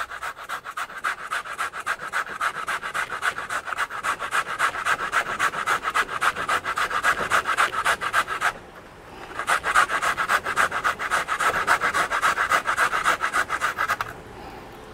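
Sweet potato being grated on a metal box grater: quick, even rasping strokes, with a short break a little past halfway, stopping about a second before the end.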